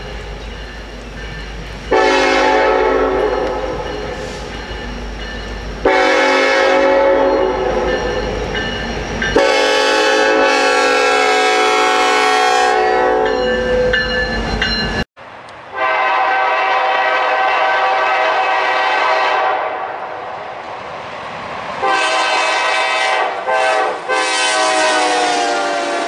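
Diesel locomotive multi-chime air horn sounding a series of long blasts, each a chord of several tones, over a low rumble. About halfway through the sound cuts off abruptly and a second horn sequence of long blasts follows, the last one broken by two short gaps.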